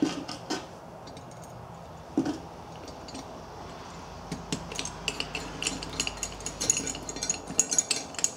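Small steel hardware (nuts, washers and a bolt) clinking and rattling against a welded steel bracket as the pieces are handled and fitted together. A few separate clinks at first, then quick, frequent clinks with a light metallic ring through the second half.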